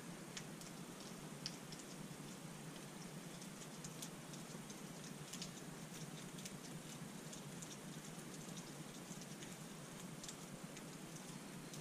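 Faint, scattered light clicks and ticks of gloved hands fitting a gear indicator switch and its wiring onto a motorcycle engine's crankcase, over a steady low hiss.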